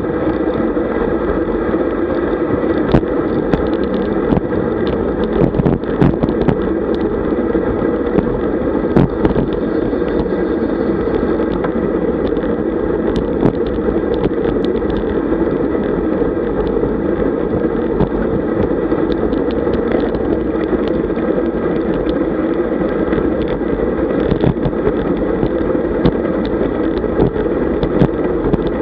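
Steady rumble of wind and road noise picked up by a camera on a road bicycle riding fast in a group, with frequent small clicks and knocks from the bike jolting over the road surface.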